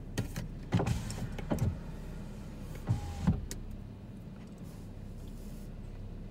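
Several short knocks and clicks, some with quick falling squeaks, over a steady low hum inside a parked car. The loudest knock comes a little over three seconds in.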